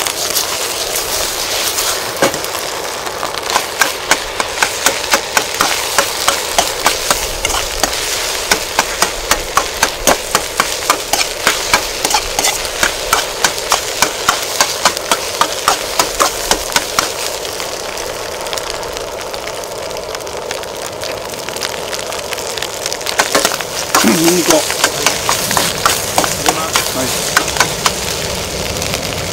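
Fried rice sizzling in a hot pan while a spatula strikes and scrapes the pan in a steady rhythm of about two or three strokes a second. The strokes pause for several seconds in the middle, then pick up again near the end.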